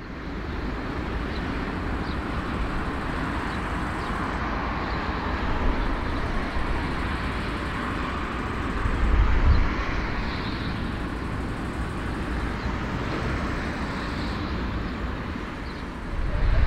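Airbus A340's jet engines running at taxi: a steady rush with a deep low rumble that swells briefly about nine and a half seconds in.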